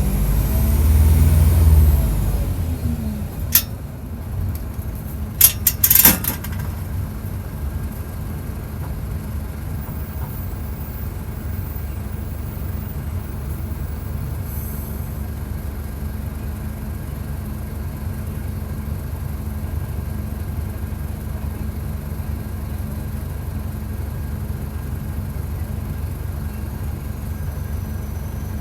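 Mercedes-Benz OF-1722 bus diesel engine, heard close up: it revs hard for the first couple of seconds, then drops back, with a short sharp sound about three and a half seconds in and a quick cluster of them around six seconds. It then settles to a steady low idle for the rest.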